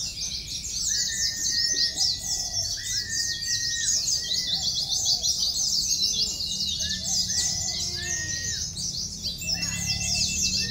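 Many caged white-eyes (pleci) singing at once: a dense, fast, high-pitched twittering that never lets up, with a few clearer, longer whistled notes mixed in.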